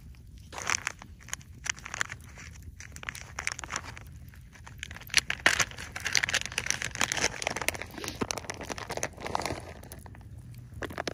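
Plastic packaging crinkling and rustling as it is handled, in irregular bursts that grow dense and busy from about halfway through.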